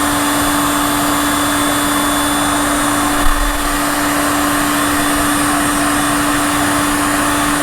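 Electric heat gun running steadily, its fan blowing with a constant motor hum, shrinking heat-shrink tubing over a soldered wire splice.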